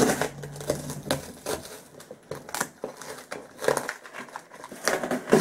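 Paper and cardboard packaging handled and pulled open by hand, crinkling and rustling with irregular sharp crackles.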